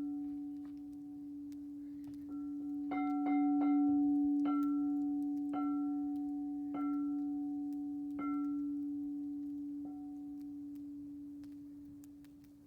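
A resonant metal percussion instrument is struck about nine times at an unhurried pace. Each strike brings out bright overtones that fade within a second or so, while a low humming tone rings on steadily beneath.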